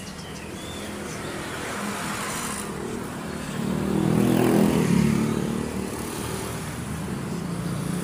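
A motor vehicle passes close by on the street. Its engine grows louder to a peak about halfway through, then fades away.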